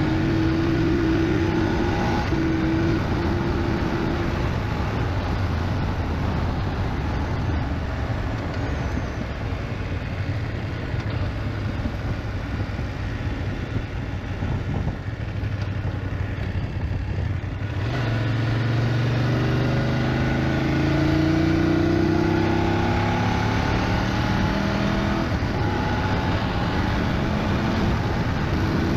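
BMW GS motorcycle riding along, its engine running under steady wind and road noise. A little past halfway the engine note rises as the bike accelerates.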